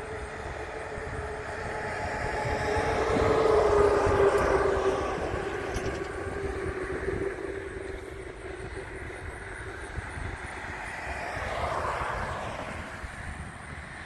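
Passing vehicles: a drone that swells and fades, peaking about four seconds in with a slowly falling whine, then a second, smaller swell near the end.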